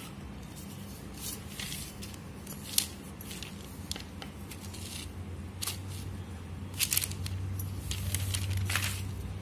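Wooden rolling pin rolling out soft dough on a floured surface: irregular scrapes and light knocks, with one sharp click a little under three seconds in. A steady low hum runs underneath.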